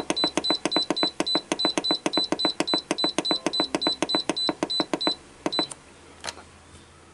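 Instant Pot control panel beeping rapidly, about six short beeps a second, as the cooking time is stepped up for an hour-and-a-half cook. The run of beeps stops about five seconds in, and two more beeps and a single click follow.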